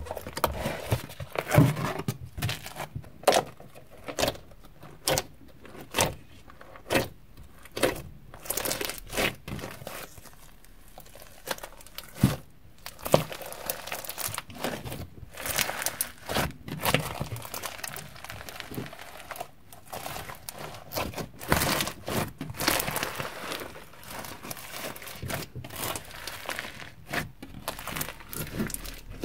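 Crunchy floam slime, slime packed with foam beads, being squeezed and poked by hand, giving off irregular crackling and popping with sticky tearing sounds as it is stretched.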